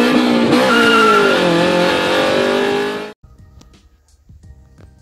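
Car engine revving up and down with tyre squeal, loud, cutting off abruptly about three seconds in; faint music follows.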